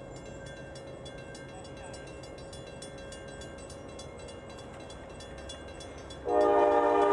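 Grade-crossing bell ringing in rapid, evenly spaced strikes as the gates come down. About six seconds in, the approaching Norfolk Southern C40-9W's air horn starts suddenly, loud: a chord of several notes held on.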